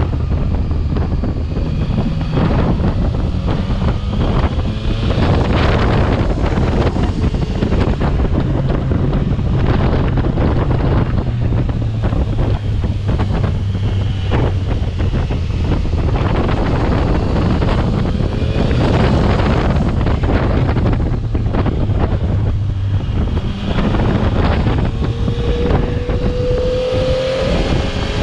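Heavy wind buffeting on the microphone over a Yamaha Tracer 900's inline three-cylinder engine running steadily underneath, with a rising engine note near the end as the bike speeds up.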